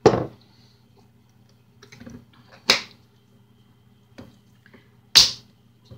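Three sharp knocks about two and a half seconds apart, as seasoning bottles are handled and set down on a stone countertop, over a faint low steady hum.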